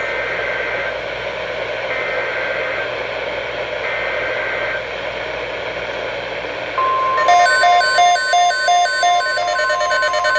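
NOAA Weather Radio alert heard through receiver static: three short bursts of two-tone SAME digital header data, about a second apart, encoding the Flash Flood Watch. About seven seconds in, the steady 1050 Hz weather alarm tone starts, and a separate electronic beep pulsing about three times a second joins it.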